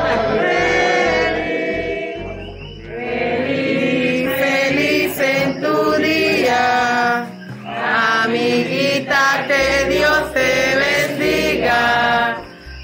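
A group of people singing a Spanish-language birthday song together.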